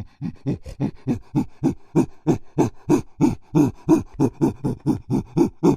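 A monkey calling in a rapid run of repeated calls, about three a second, growing louder over the first few seconds.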